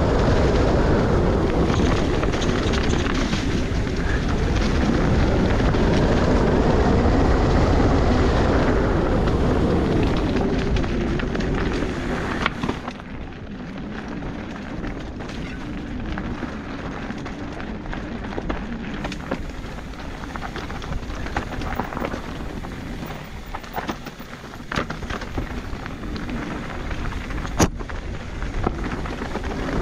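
Mountain bike running down a dirt singletrack, with wind buffeting the microphone over the rumble of tyres on the trail. The rumble is loud for the first dozen seconds, then eases, leaving scattered knocks and rattles from the bike over rough ground and one sharp knock near the end.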